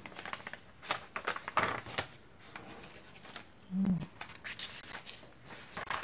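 Paper rustling and crinkling in quick, uneven bursts as the pages and inserted cards of a handmade paper journal are handled and turned, with a short hum of voice about four seconds in.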